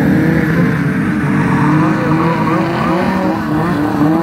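Racing snowmobile engine running at high revs, its pitch wavering up and down with the throttle as the sled skims across water.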